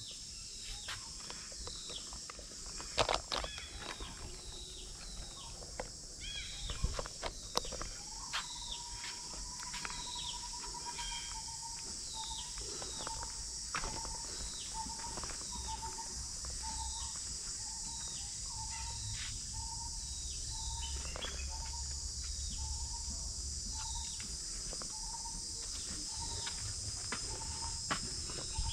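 Tropical forest ambience: a steady high drone of insects with birds calling over it in short, falling chirps. About a third of the way in, a held note turns into a repeated note that pulses a little faster than once a second. There are a few sharp knocks in the first several seconds.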